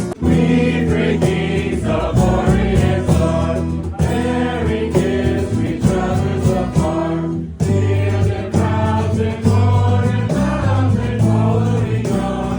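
A youth choir singing a Christmas carol with accompaniment, many voices holding sustained notes, with a short break in the phrase about seven and a half seconds in.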